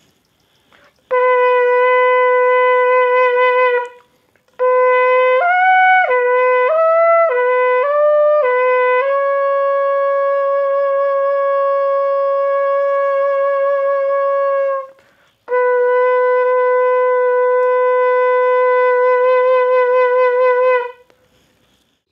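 Bukkehorn, a goat-horn trumpet with finger holes, blown with buzzing lips like a trumpet. It plays three long blasts: a held note, then a phrase that steps up and down through a few higher notes before settling on a long held note, then another long held note that wavers slightly near its end.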